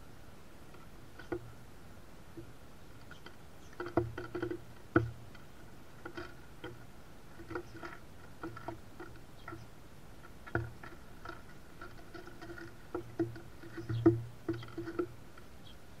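Sparrows pecking at and cracking sunflower seeds on a wooden platform feeder: irregular clicks and taps on the wood, with clusters about four seconds in and again near the end.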